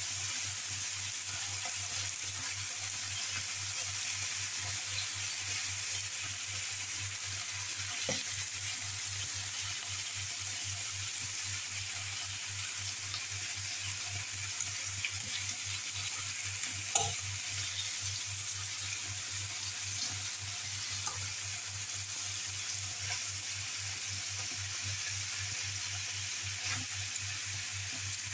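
Bone-in meat chops frying in butter in a pan, a steady sizzle with a few sharper pops of spitting fat, the loudest about seventeen seconds in.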